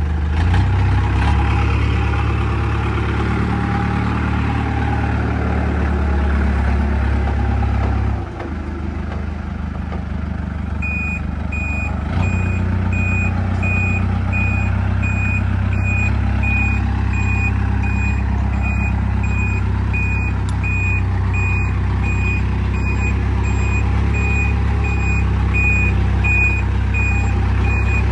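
Backhoe loader's diesel engine running hard, easing off about a third of the way in, then picking up again. Partway through, its reversing alarm starts a steady on-and-off beeping as the machine backs up.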